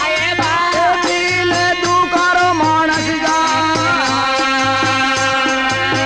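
Marwari folk music interlude: a melody with gliding, bending notes over a rattle-like shaker and a regular low beat.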